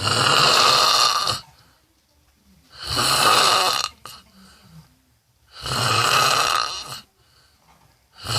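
A person snoring loudly: a long, harsh, rasping snore about every three seconds, three in all, with a fourth starting right at the end and quiet gaps between.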